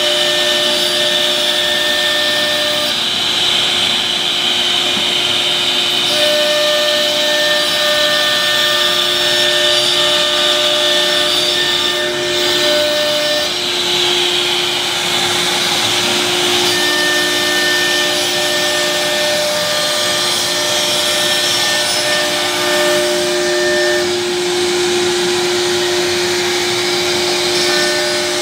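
CNC router running steadily, its spindle whining as the bit routes grooves into a sheet board, with the dust extraction drawing air and chips through the hose. Part of the whine drops out and comes back every few seconds as the head moves from one cut to the next.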